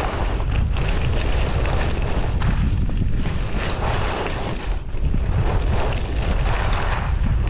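Wind buffeting the camera's microphone at skiing speed, a loud gusty rumble, with the hiss and scrape of skis carving on groomed snow.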